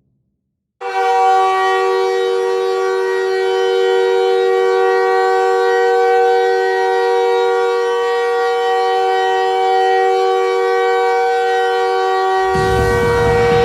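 An NHL arena goal horn sounding one long, steady blast that holds several notes at once as a chord, for about eleven seconds. Near the end a loud wash of music and noise comes in on top of it.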